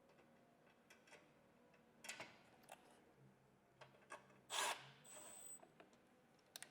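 Faint, scattered clicks and scrapes of screws and floorboard panels being handled and fastened, with one louder brief rasp about four and a half seconds in.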